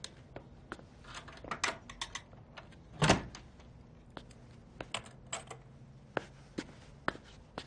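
Cutlery and dishes clinking at a dinner table: scattered light clicks, with one louder knock about three seconds in.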